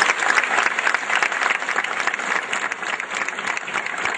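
Crowd applauding, many hands clapping at once, easing off slightly in the second half.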